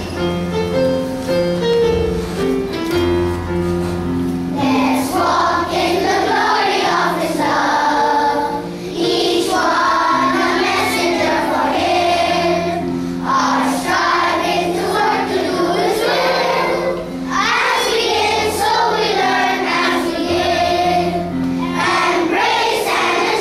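Children's choir singing a school song or anthem in chorus, with instrumental accompaniment. The accompaniment plays alone for the first few seconds before the voices come in, and the singing then goes on in phrases with short breaths between them.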